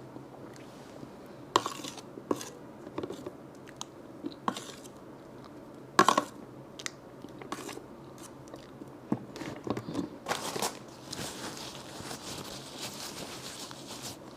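Close-miked eating: sharp bites and wet chewing clicks at irregular intervals, the loudest about six seconds in, then a soft hissy rustle over the last few seconds.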